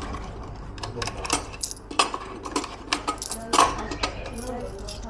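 Coins clinking and dropping at a vending machine: a run of sharp metallic clicks and knocks, the loudest about two seconds in and again about three and a half seconds in.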